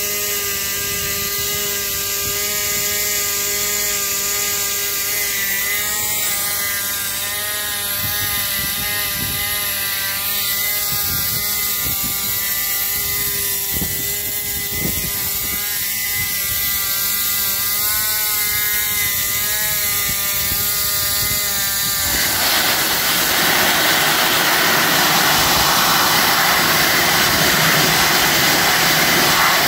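A steady machine whine with a few faint clicks, then about two-thirds of the way through a wet abrasive blasting nozzle opens up: a loud, steady hiss of compressed air, water and abrasive spraying against rusty steel.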